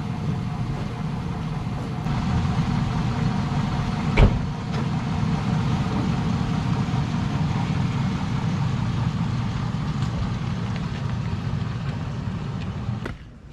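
GMC pickup truck engine idling steadily, with a single sharp knock about four seconds in. The sound stops abruptly near the end.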